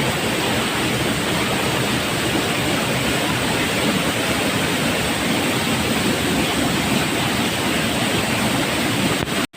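Waterfall rushing with a steady, full roar of falling water, cut off by a brief dropout near the end.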